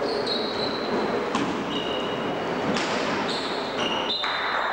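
Basketball game in a large gym: the ball bouncing on the court with sharp, echoing knocks, and short high squeals coming and going over a steady hall noise.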